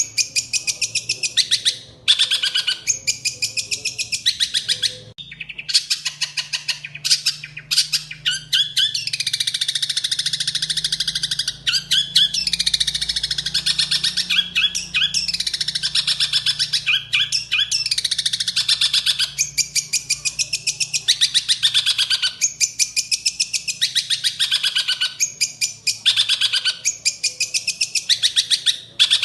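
Songbird singing a long, fast chattering song of rapid repeated chirps and trills, with a brief pause about five seconds in. This is a masteran recording, the kind played to caged songbirds to teach them song.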